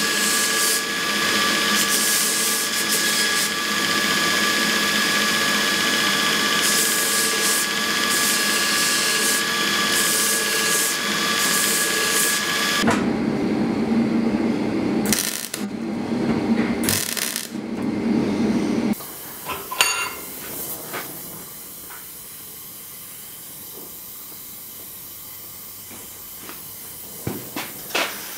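Belt grinder running with a steel part pressed against the belt, a steady grinding noise with a high whine, which stops about 13 seconds in. It is followed by several seconds of stop-start MIG welding crackle, then a much quieter steady background.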